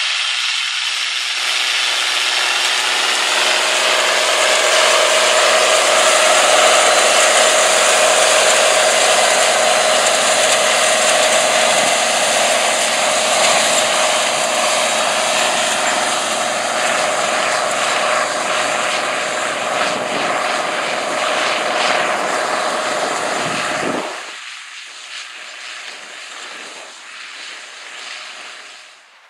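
International 6788 2+2 tractor's six-cylinder DT466 diesel running under load as it pulls a Case IH 955 Cyclo Air planter past, a steady mechanical din with a steady hum in it. The sound drops sharply about 24 seconds in and fades as the rig moves away.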